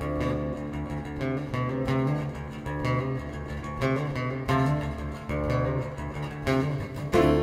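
Live acoustic steel-string guitar playing a featured passage of plucked notes over sustained low notes. The music gets louder just before the end.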